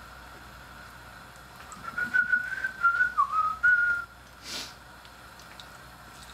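A person whistling a short wavering tune of a few notes, over a faint steady high tone. A brief sizzle follows as a piece of plantain goes into the hot oil in the frying pan.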